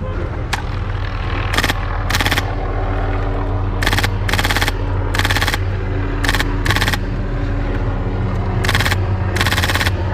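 Airsoft gun firing on full auto in short bursts: about ten bursts of rapid shots, each lasting a fraction of a second to under a second, with pauses between them.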